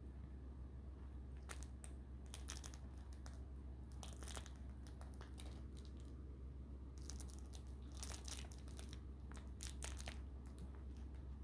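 Faint, scattered rustling and crinkling of kittens scrabbling and playing, in short irregular bursts.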